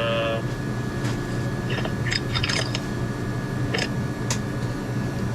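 Steady low hum with a few small, faint clicks and crackles, like something being handled.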